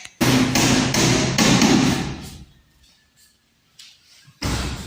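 Rapid hammering as plywood is nailed to the wooden ceiling framing, a quick run of knocks lasting about two seconds, then a single heavy thump near the end.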